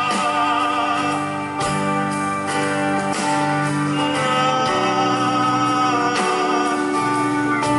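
Live band music between sung lines of a song, with a voice holding long notes over the instruments.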